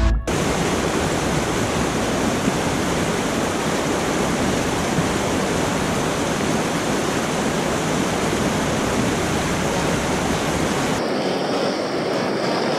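Mountain stream rushing through a small cascade, a steady full rush of water; about eleven seconds in it cuts to a softer, thinner river flow.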